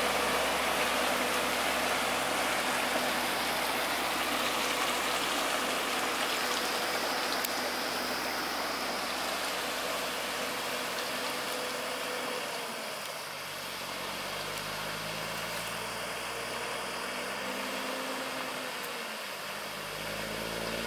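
Multi-trailer road train's wheels rolling through shallow floodwater over the road, a steady rush of splashing water with the truck's diesel engine running underneath. About two-thirds of the way through, the water noise eases and the engine's low note comes through more plainly.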